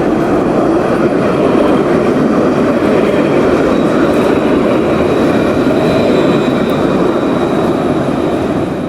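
Cable car rolling along its rails, a steady heavy rumble with a faint high whine from the wheels or cable.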